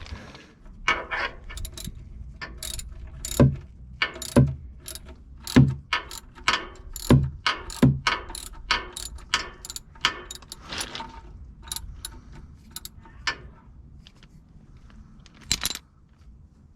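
Socket wrench working the 16 mm oil drain plug loose on a van's oil pan: an irregular run of sharp clicks and metallic knocks, some with a dull thud, stopping shortly before the end.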